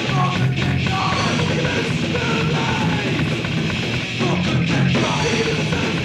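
Thrash metal playing: distorted electric guitars with bass and drums, dense and loud throughout.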